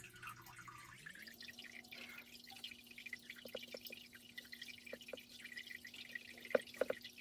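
Faint, irregular water drips plinking, the loudest a little before the end, over a low steady hum that steps up in pitch about a second in.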